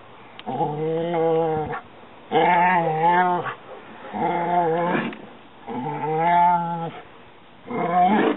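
A dog with its head inside a picnic cooler makes five long, drawn-out vocal sounds at the catfish kept there. Each lasts about a second at a fairly even pitch, with short pauses between them.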